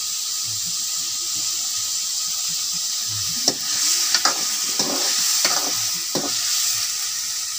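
Potatoes, fresh peas and onion sizzling steadily in hot oil in a metal pan. About halfway through, a metal ladle scrapes and stirs the pan in a handful of short strokes.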